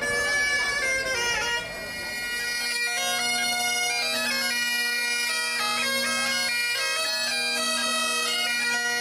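Bagpipes and a bombarde playing a tune together. The melody steps from note to note over the pipes' steady drones.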